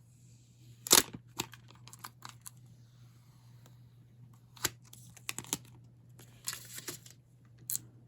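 Packaging being handled and opened by hand to get at a smart wall switch: scattered sharp clicks and crinkling, the loudest click about a second in and a short stretch of rustling near the end.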